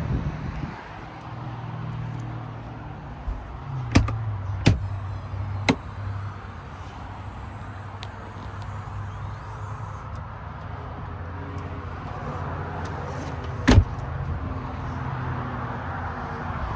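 An engine running steadily with a low hum, with a few sharp clicks or knocks over it, the loudest one near the end.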